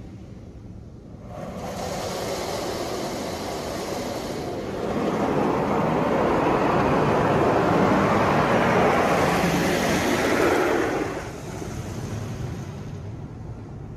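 High-pressure water spray from a PDQ LaserWash 360 Plus touch-free car wash drumming on the car, heard from inside the cabin. It starts about a second in and grows louder midway as the spray passes close over the car. It drops away suddenly near the end.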